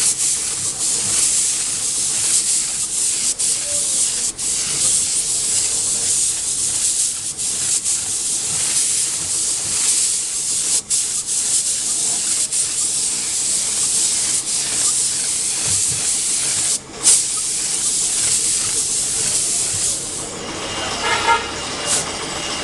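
Compressed-air paint spray gun hissing steadily as it sprays a coat of red paint onto a motorcycle fuel tank, with a couple of brief breaks; the hiss stops about twenty seconds in.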